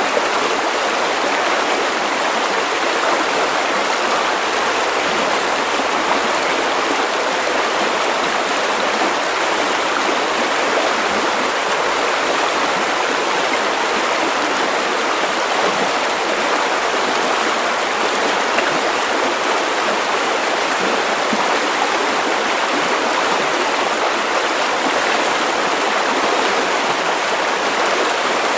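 River water running steadily over stones, an even rushing and babbling without pauses.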